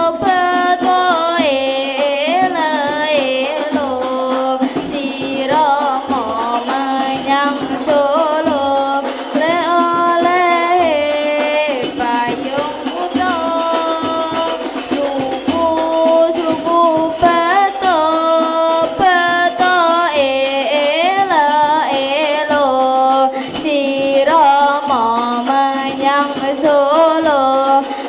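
Children singing a sholawat, an Islamic devotional song praising the Prophet, to rebana frame drums, with a low drum stroke keeping a steady beat about once a second.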